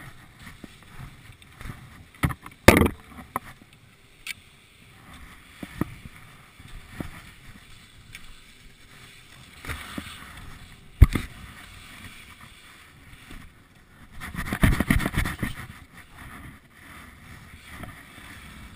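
Skis sliding and scraping over packed snow, with scattered sharp knocks and clicks from poles and gear. One knock just past the middle is the sharpest, and a louder stretch of rough scraping comes about three-quarters of the way through.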